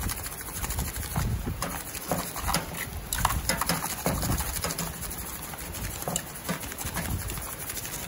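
Irregular clicks and light knocks from metal tongs against an aluminium foil tray in a steel charcoal grill as small trout are turned, along with a seasoning shaker being shaken over them.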